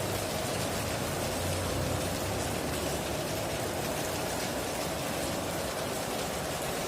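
Heavy rain drumming steadily on a tin roof, with a brief low rumble about a second and a half in.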